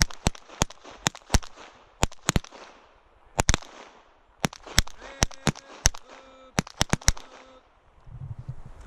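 A timed series of pistol fire: a couple of dozen sharp gunshot cracks, unevenly spaced and of differing loudness, some almost on top of each other, as the shooter's own pistol and others along the firing line shoot together. The firing stops about seven and a half seconds in.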